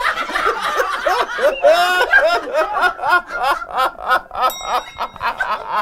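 A man laughing hard in a long rapid run of ha-ha's, about three laughs a second.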